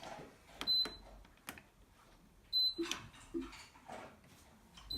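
Smeg dishwasher control panel beeping: two short, high beeps a couple of seconds apart, with a few sharp clicks of buttons being pressed as the machine is switched on and a program is started.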